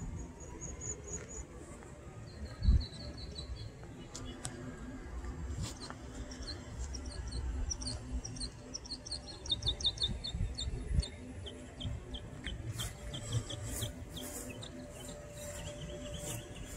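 Small birds chirping: several runs of short, high, quickly repeated notes. Low wind rumble on the microphone underneath, and a single dull thump about three seconds in.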